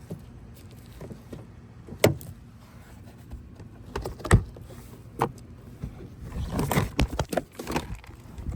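Plastic retaining clips of a 2001 Lexus ES300 door trim panel snapping loose as the panel is pried off with a trim tool: single sharp snaps about two and four seconds in, then a cluster of snaps with scraping near the end.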